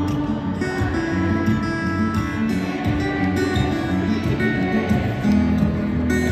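Solo acoustic guitar played live through an arena sound system, an instrumental passage of picked and strummed chords with no singing.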